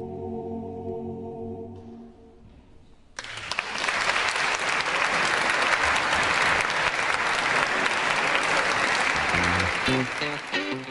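An a cappella men's barbershop chorus holds its final chord, which fades out about two seconds in. After a brief lull, an audience breaks into steady applause that continues for about seven seconds. Near the end, guitar music comes in.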